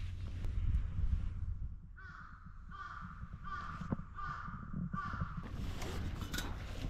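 A crow cawing five times in a steady series, harsh calls about two-thirds of a second apart, over a low rumble with scattered small knocks.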